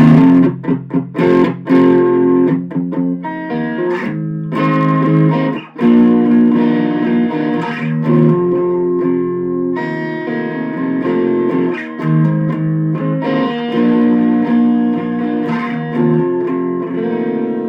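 Epiphone Special II electric guitar played through a Boss Katana Mini amp on its crunch channel with the tone selector on rhythm. Several quick strummed chords in the first couple of seconds, then a riff of held chords and notes.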